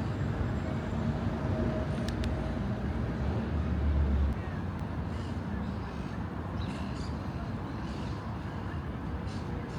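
Urban street ambience: a steady traffic rumble, with a deeper rumble swelling about three seconds in and cutting off suddenly. Short bird calls come in the second half.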